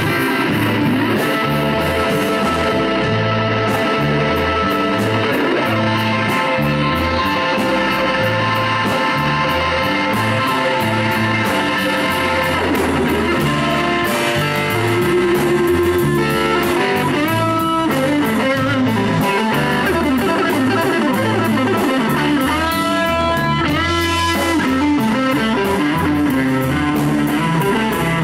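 Live blues band: a Stratocaster-style electric guitar plays lead lines with bent notes over bass guitar and drums.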